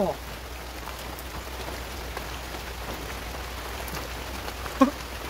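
Steady rain with scattered drop ticks, falling on a corrugated metal roof overhead. Near the end, a brief vocal sound from a person.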